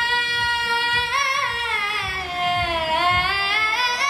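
A solo high voice singing in an Arabic melismatic style. It holds one long high note, then slides down through a wavering, ornamented line and climbs back up near the end.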